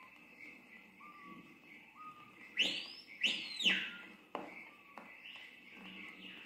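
Whistled song of the bird introduced as the 'pássaro assobiador' (whistler bird): a few soft, short, level whistles, then two loud whistles about two and a half seconds in, each rising and then falling.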